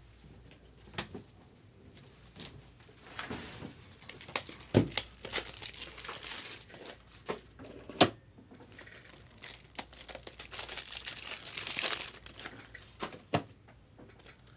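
Plastic card packaging crinkling and tearing as it is handled, in two longer stretches, with sharp clicks and knocks in between; the loudest is a knock about eight seconds in.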